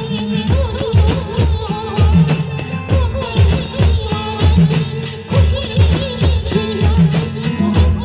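Live band playing a Hindi film song: bass drums and snare drums keep a steady beat of about two strokes a second under a wavering melody.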